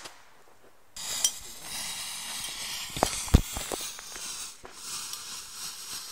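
After a second of near silence, a burning firework hisses steadily, with a few sharp pops near the middle.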